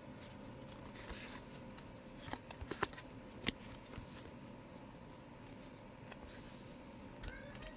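Loose cardboard baseball cards being handled and flipped onto a table, with a few light clicks and taps about two to three and a half seconds in.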